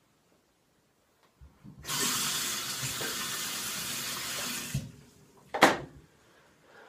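Bathroom sink tap running for about three seconds, turned on about two seconds in and shut off just before five seconds. A short, sharp, louder sound follows about a second later.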